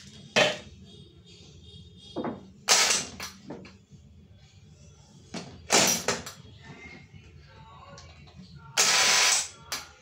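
Handling of an intercom demo board: the plastic door phone handset clacks onto its cradle, then a small wooden door fitted with an electric rim lock is pushed and knocked, giving a series of sharp knocks and clunks. A harsh noisy burst of under a second comes near the end.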